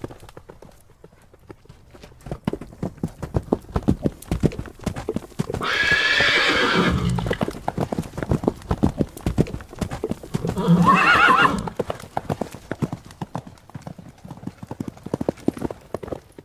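Horses galloping, a fast run of hoofbeats. A horse whinnies loudly twice, about six seconds in and again about eleven seconds in.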